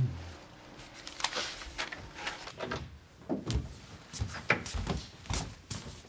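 Irregular soft knocks and clicks, a few with a dull thump, as a wooden room door is handled and opened.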